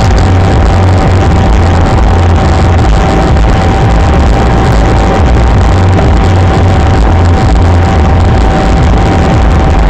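Loud, steady road and engine rumble of a car cruising at highway speed, picked up by a dashcam's built-in microphone, with a constant thin whine over it.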